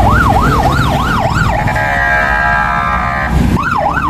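Emergency vehicle siren sounding in fast yelp mode, its pitch sweeping up and down about three times a second. About halfway through it switches for under two seconds to a steady, held blaring tone, then the yelp resumes near the end. Road traffic rumbles underneath.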